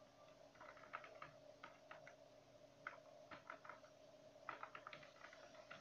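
Faint computer keyboard keystrokes in three quick bursts of clicks, over a faint steady hum.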